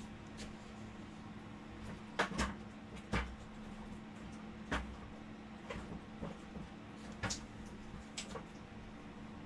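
Irregular light knocks and clicks, about nine of them unevenly spaced, the loudest a close pair about two seconds in, over a steady low hum.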